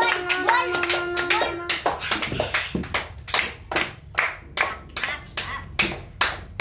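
Several boys clapping their hands in a steady rhythm, about three claps a second. Over the first couple of seconds a single steady note is held, then stops.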